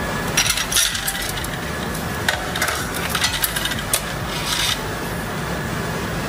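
Scattered small metallic clicks, clinks and rustles of hands working among the wiring, connectors and fittings inside the open top of an electric storage water heater. Several sharp clicks come close together in the first couple of seconds, with a few more near the middle.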